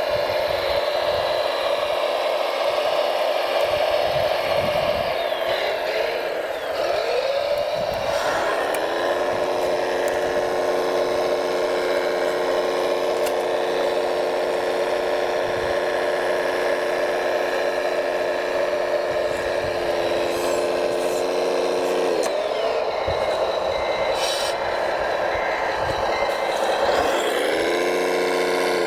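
Radio-controlled model truck running with a steady motor whine whose pitch drops and climbs again a few times as it slows and speeds up, with some scraping and clatter.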